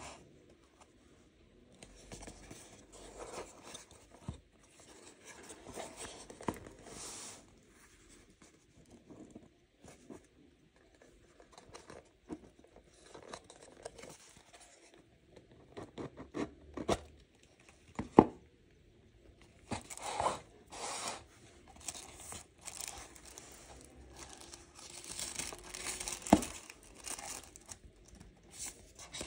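A cardboard gift box handled and opened, its crinkly wrapping paper rustled and folded back and a paper card drawn out: scattered rustling and light taps, with a sharp knock about 18 seconds in, the loudest sound.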